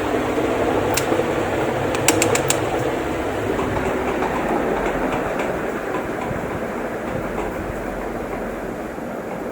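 Ceiling fan running, a steady rush of air over a low motor hum, with a few light clicks about a second in and a quick run of clicks just after two seconds. The sound gradually gets quieter.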